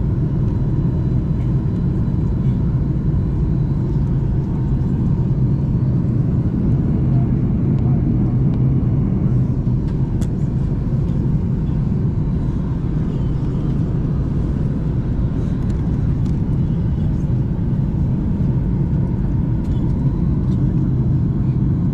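Airliner cabin noise: the steady low rumble of a Southwest Boeing 737's jet engines and airflow, heard from a window seat as the plane descends to land.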